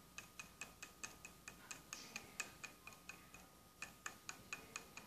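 Faint, quick light taps or clicks on a small toy container, about four to five a second, with a short pause a little after three seconds in, as it is tapped to make its contents fall out.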